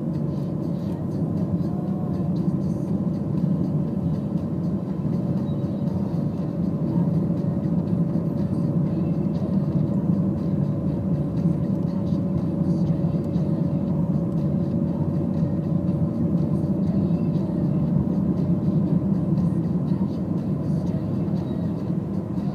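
Car driving at steady speed on an asphalt country road, heard from inside the cabin: a constant low rumble of engine and tyre noise, with a faint steady whine through the middle.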